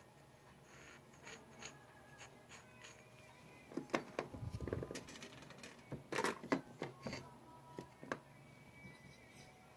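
Metal gun parts clicking and knocking as an AR-15 buffer tube is handled and threaded into the lower receiver, with a brief low rumble about halfway through.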